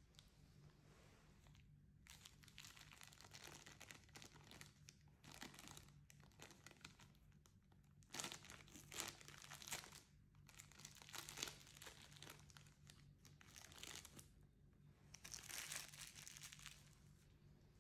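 Clear plastic bag crinkling as gloved hands handle it, in irregular bursts starting about two seconds in. The loudest bursts come near the middle and again near the end.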